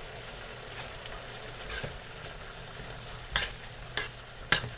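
Diced chicken and bell peppers sizzling in a stainless steel skillet, with a metal utensil scraping and clinking against the pan a few times as the food is stirred, the sharpest clink near the end.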